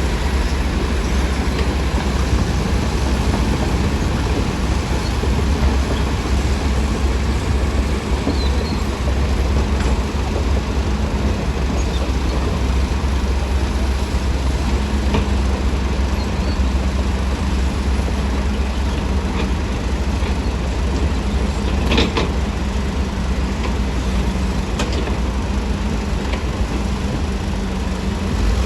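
Heavy diesel earthmoving machinery running steadily with a deep, unbroken engine rumble. A single sharp knock sounds about three-quarters of the way through.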